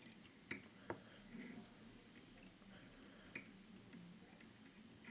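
Faint handling noises of thread being wound onto a hook in a fly-tying vise: a sharp click about half a second in, a lighter tick just after, and another sharp click about three seconds later.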